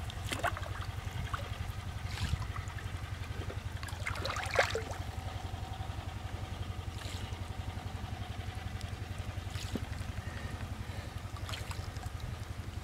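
A small engine running steadily with a rapid low chug, with scattered short splashes and squelches of water and wet mud over it.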